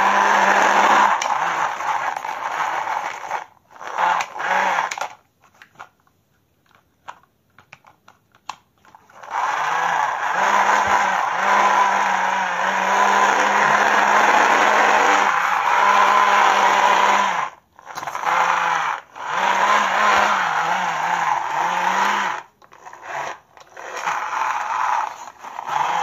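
Plastic toy excavator's gear mechanism whirring and grinding in long bursts as it is worked by hand, with a steady buzzing tone. It stops several times, once for a few seconds that hold only a few small clicks.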